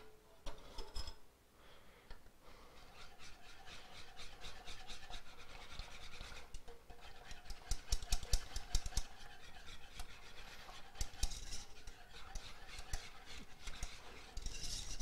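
A whisk stirring roux into velouté sauce in a saucepan: quick, rhythmic scraping and clicking against the pan, starting a couple of seconds in.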